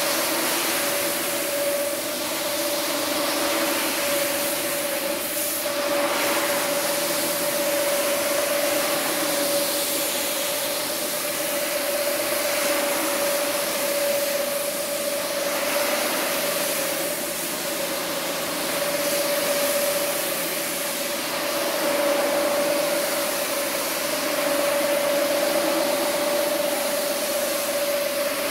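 Electric single-disc rotary scrubber running steadily, its motor giving a constant hum while the brush scrubs a foam-covered rug with a hissing swish that swells and fades as the machine is swept back and forth.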